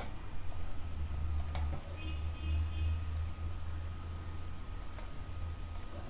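A few scattered computer mouse clicks over a steady low hum and a faint steady high whine.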